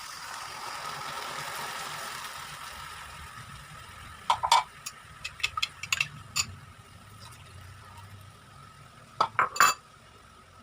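A utensil clinking against a cooking pot during stirring: a soft hiss over the first few seconds, then two clusters of sharp clinks, the second near the end.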